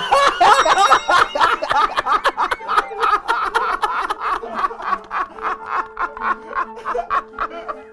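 Men laughing hard in a long run of rapid 'pahahaha' bursts, loudest at first and weakening toward the end.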